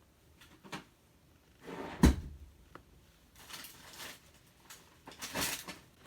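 Brush strokes rasping over a cat's fur, three of them, with a sharp knock about two seconds in, the loudest sound.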